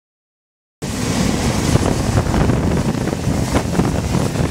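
Wind rumbling and buffeting on the microphone, with a fainter hiss above it; it cuts in suddenly about a second in.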